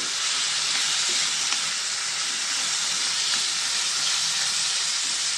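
Cauliflower florets and onions frying in oil in a kadai, giving a steady sizzle, as a spatula stirs them with a few faint scrapes and taps.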